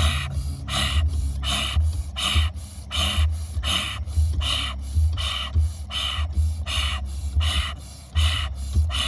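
A person breathing fast and hard in a steady rhythm, about one and a half forceful breaths a second, as in a power-breathing round of breathwork. A low steady hum runs underneath.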